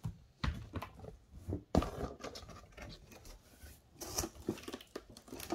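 Cardboard box being opened by hand: the lid and cardboard inserts rubbing, sliding and knocking, with several sharp knocks, the loudest about two seconds in.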